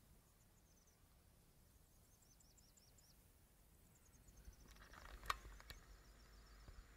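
Faint high insect chirps over quiet rural ambience, then, about five seconds in, one sharp mechanical click from a cassette Walkman's play key being pressed, followed by a couple of smaller clicks.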